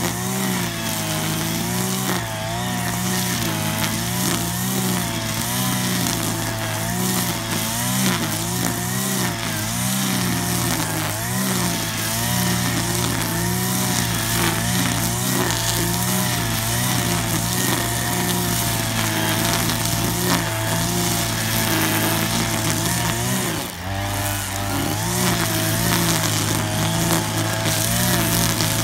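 Petrol string trimmer (brush cutter) running at high speed while mowing grass, its engine pitch wavering up and down as the cutting head sweeps through the grass. About 24 seconds in, the engine briefly drops in speed and then picks back up.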